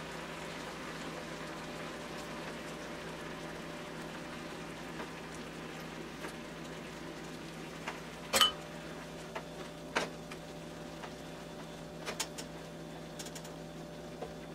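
A skillet of venison hamburger helper bubbling steadily as the noodles simmer in liquid, with a few sharp clicks, the loudest about eight seconds in.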